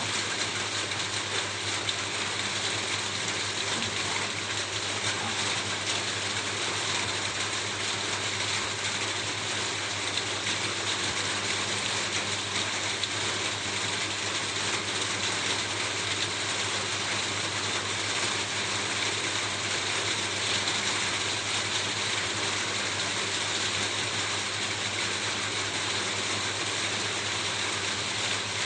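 Steady rain falling on a roof: an even, unbroken hiss made of countless fine drop ticks.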